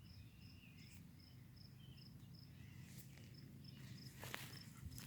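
Near silence with a faint cricket chirping steadily, about two to three high chirps a second, and a couple of faint clicks about three and four seconds in.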